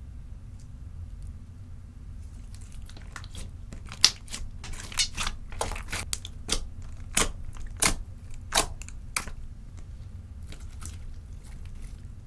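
Clear slime streaked with nail polish being squished and kneaded by hand, giving a quick run of wet pops and crackles that comes in about three seconds in and fades out near the end, over a steady low hum.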